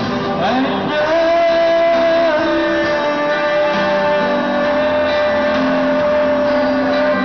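A man singing through a microphone and PA over a karaoke backing track, holding one long note after a short upward slide about a second in.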